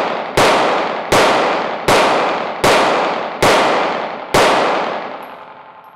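Smith & Wesson M&P Shield 2.0 pistol fired six times in steady succession, about one shot every three-quarters of a second, each shot ringing on in the echo of an indoor range. The echo of the last shot dies away near the end.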